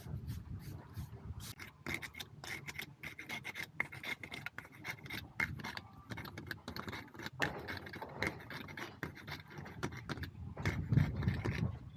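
Bricklayer's joint roller (pointer) scraping and rubbing along mortar joints in brickwork, a quick, irregular run of short rasping strokes.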